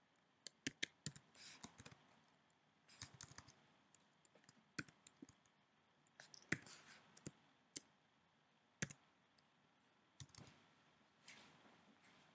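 Faint clicking of a computer keyboard and mouse, in short irregular clusters of a few clicks each.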